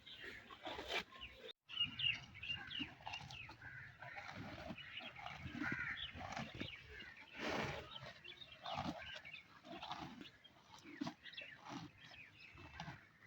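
A buffalo grazing: irregular tearing and crunching of fresh grass as it is pulled up and chewed, with one louder stroke about halfway through.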